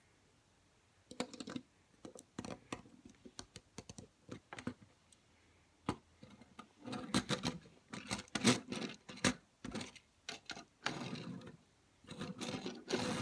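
Plastic Lego pieces clicking and knocking as they are handled and pressed together, with the toy kart knocking on the tabletop as it is moved. The clicks come irregularly, sparse at first and in dense runs in the second half.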